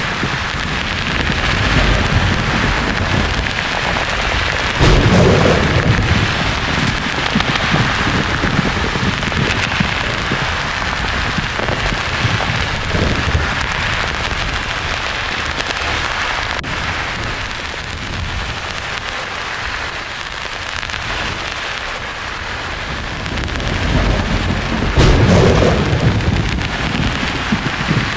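Steady rain-like white-noise hiss with two rolls of thunder rumbling low, one about five seconds in and another near the end.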